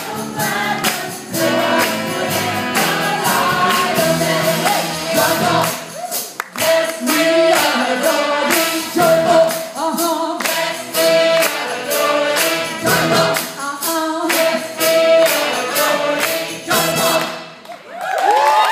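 Gospel-style choir singing with a live band over a steady beat of tambourine-like percussion. Near the end the music breaks off briefly, then voices swoop up and down in pitch.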